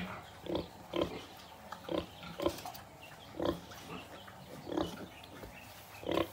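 A nursing sow grunting in short, separate grunts, roughly one a second, while her piglets suckle at her teats.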